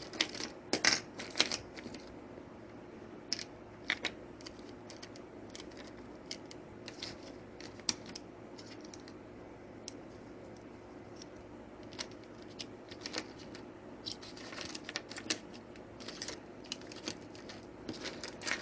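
Small plastic clicks and taps at irregular intervals, some in quick clusters, from a Viper 7351V remote key fob being handled and pressed, over a faint steady hum.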